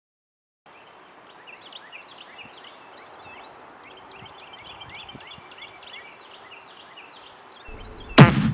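Woodland ambience with many small birds chirping over a low steady background hiss. A sudden loud thump comes near the end.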